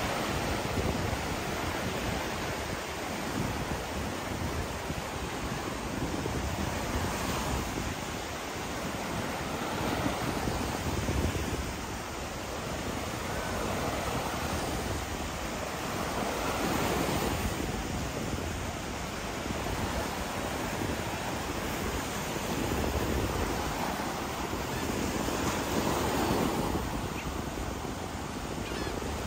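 Gulf of Mexico surf breaking on the beach: a steady wash of waves that swells and eases every few seconds.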